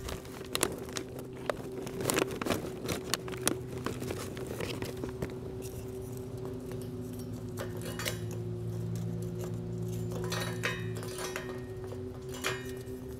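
Charcoal briquettes clinking and clattering as they are dropped by hand into a wire-mesh charcoal column. The clatters come thickest in the first few seconds and again in clusters near the end, over a steady low hum.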